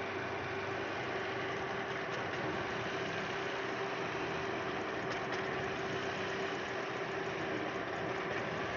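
Toyota Vios four-cylinder petrol engine idling steadily under an open hood, with a steady whine running over it.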